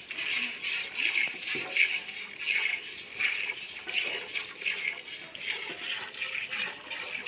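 Milk squirting from a cow's teats into a pail during hand milking, in a regular rhythm of about one to two hissing streams a second.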